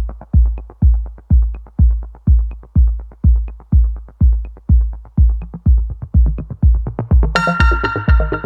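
Background electronic music with a steady kick-drum beat a little over twice a second; sustained synth chords come in about seven seconds in.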